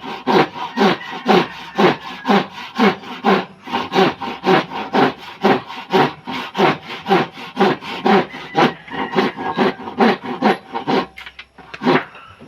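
Hand saw cutting through wood in steady back-and-forth strokes, about two to three a second, stopping about a second before the end.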